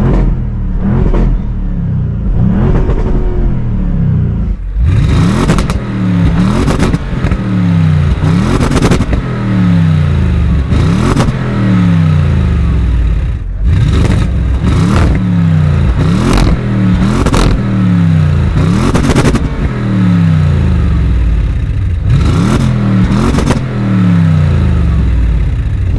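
Audi RS6 with its completely stock exhaust, valves open in dynamic mode, revved hard again and again while stationary. Each throttle blip climbs sharply and the revs fall back before the next one, about every one to two seconds.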